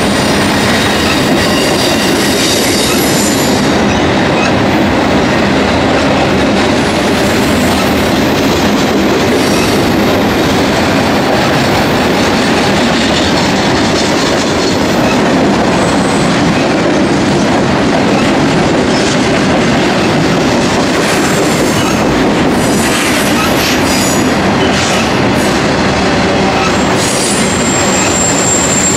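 BNSF intermodal train's cars, double-stack containers and trailers on flatcars, rolling past on curved track: a loud, steady rumble of wheels on rail. A faint high wheel squeal comes through at times, most clearly near the end.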